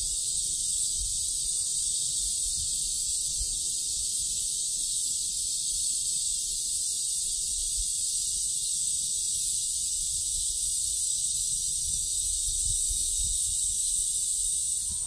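Cicadas singing in a steady, unbroken high-pitched buzz that holds at an even level throughout, with a faint low rumble underneath.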